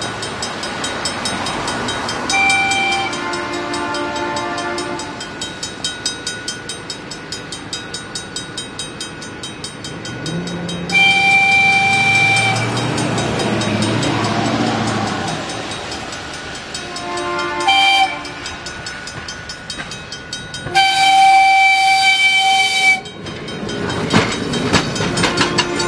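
Level-crossing warning bell ringing steadily as a backing passenger train approaches, sounding a multi-note air horn: a long blast near the middle, a short one a few seconds later and another long one after that. Wheels clack over the rail joints as the coach rolls past near the end.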